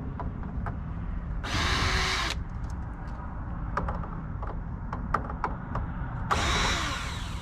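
Two short runs of a power screwdriver backing screws out of a TV's casing, each lasting about a second, with small clicks of handling screws and plastic in between.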